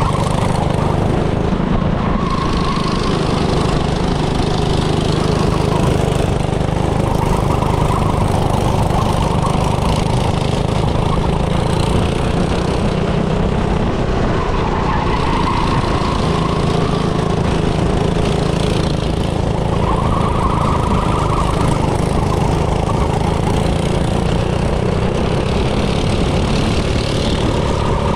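Small go-kart engine running continuously, its pitch swelling and falling back every few seconds.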